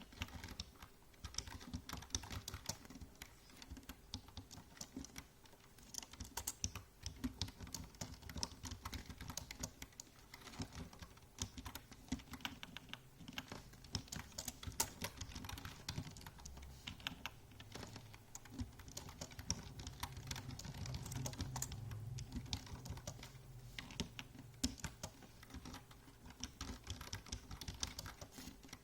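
Typing on a computer keyboard: a steady, fast, irregular stream of key clicks.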